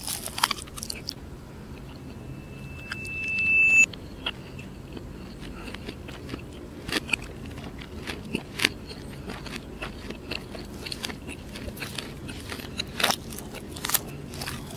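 Close-miked biting and chewing of a crispy fried chicken drumstick, played in reverse: scattered crunches, crackles and wet clicks. Between about two and four seconds a high steady tone swells up and then cuts off suddenly.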